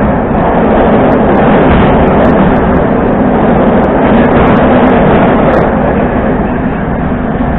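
Moscow Metro train heard from inside the carriage, running steadily along the track: a loud, even rumble with a steady low hum.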